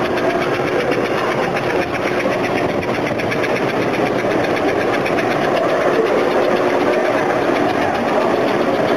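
American Flyer S gauge model steam locomotive and circus train running on the layout: a steady rattling hum of the locomotive's motor and the cars' wheels on the track.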